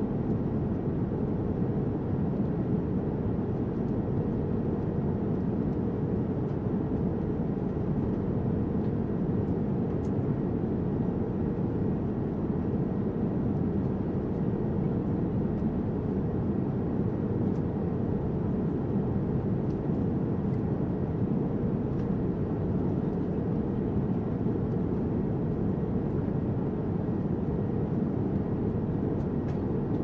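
Steady cabin noise of a jet airliner in cruise, heard inside the cabin: an even, low rush of engines and airflow.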